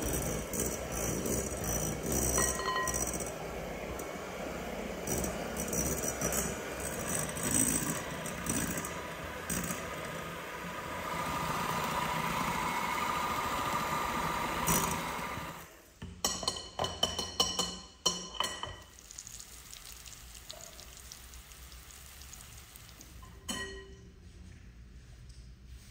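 Electric hand mixer running, its beaters whisking eggs and rattling and clinking against a glass bowl. The mixer stops about two-thirds of the way through, followed by a few sharp clinks and then quiet.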